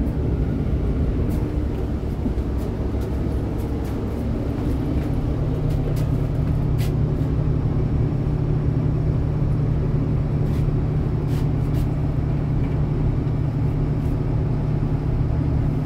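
Inside a city bus on the move: steady engine and road rumble, with a low drone that settles in about four to five seconds in, and a few faint clicks of cabin rattles.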